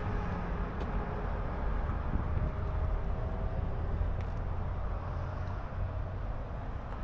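Outdoor background noise: a steady low rumble with a faint hum and a few light ticks.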